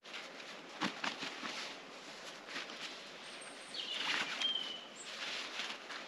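Rustling and small clicks from a fabric pouch being handled and opened, with a short, thin bird call about four seconds in.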